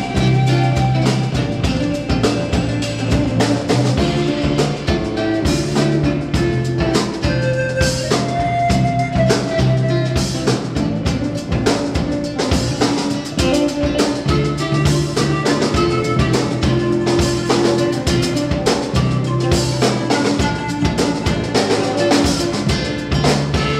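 Live Andean band playing: a drum kit keeps a busy beat on snare and cymbals under an electric bass line, with a panpipe melody and acoustic guitars.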